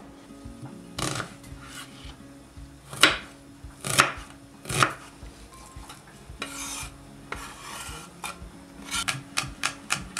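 Knife work on a wooden cutting board: a few sharp knocks in the first half, then the blade scraping sliced onion across the board, and a quick run of chopping taps near the end as garlic cloves are cut.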